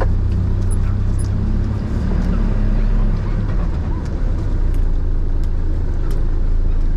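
Mitsubishi Canter 4x4 truck's diesel engine running steadily, a continuous low rumble, with a few faint clicks over it.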